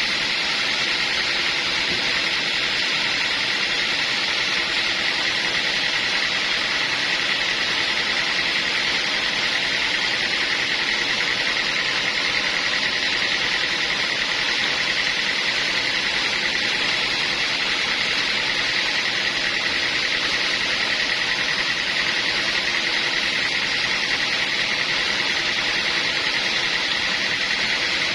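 Sawmill saw running steadily, with a high-pitched whine and a hiss that hold unchanged throughout.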